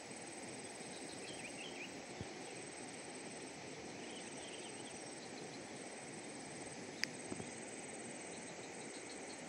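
Outdoor ambience by a still reservoir: a steady hiss with faint, scattered high chirps from small creatures, and one sharp click about seven seconds in.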